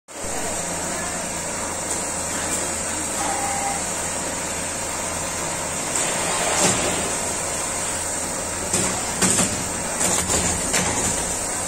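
Richpeace single-head quilting machine running with a steady mechanical hum, with knocks and clatters of its frame being handled from about six seconds in, sharpest around nine to eleven seconds.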